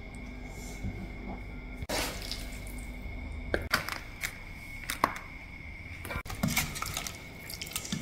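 Kitchen handling sounds: scattered sharp clicks and knocks of a spatula, wok and plastic food containers over a steady background hiss with a faint high whine.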